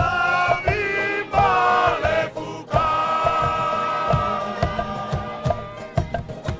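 A group of voices singing a Futunan mako dance chant in unison with held notes, over a steady beat of struck percussion.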